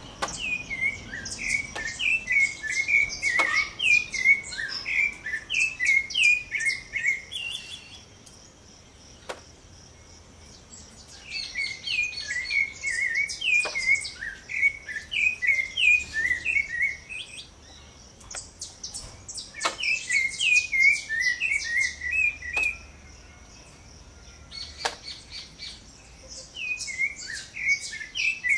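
Rufous-bellied thrush (sabiá-laranjeira) singing: four bouts of quick, varied notes, each lasting several seconds, with pauses of two or three seconds between them.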